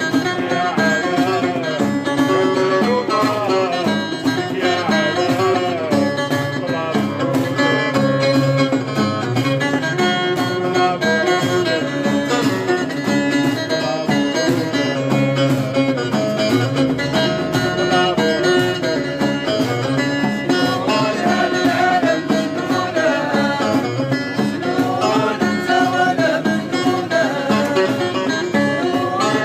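Music with plucked string instruments playing a winding melody.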